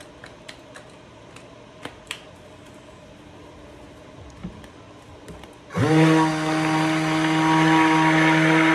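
A few light clicks and taps, then about six seconds in an immersion stick blender switches on and its motor runs at a steady pitch, blending the soap oils in a plastic bucket.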